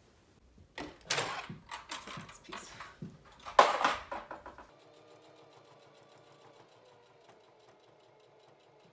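Fabric rustling and knocks of handling for the first few seconds, loudest about three and a half seconds in. Then a Singer Heavy Duty sewing machine runs faintly and steadily with fine, even ticks, stitching through layers of fleece.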